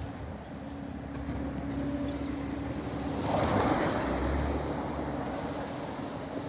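A car drives past close by, its tyre and engine noise swelling and fading about three to four seconds in, over the steady hum of a garbage truck working further down the street.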